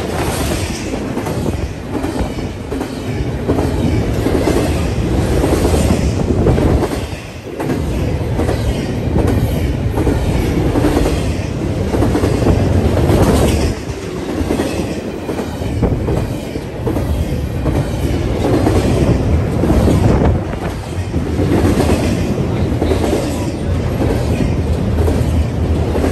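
Double-stack container freight train passing close by: a steady rumble of the well cars, with wheels clicking over the rail joints. The level dips briefly now and then.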